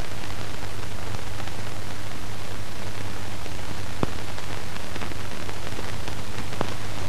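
Steady hiss and low hum of an old film soundtrack with no other sound, broken by a couple of faint clicks, one about four seconds in.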